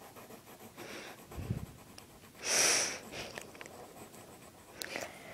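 Faint strokes of a drawing tool scratching on paper, with one louder breath about two and a half seconds in.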